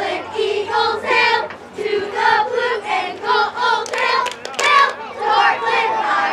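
A group of voices chanting a cheer in unison, in an even rhythm of about two syllables a second.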